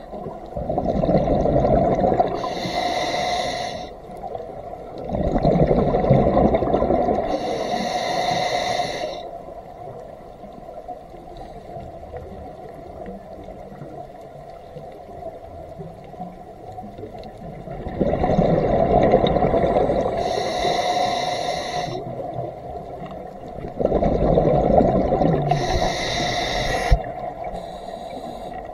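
Scuba regulator breathing underwater: the hiss of each inhalation through the demand valve, and the bubbling rumble of each exhalation. There are four breaths, with a quieter gap of about eight seconds between the second and third.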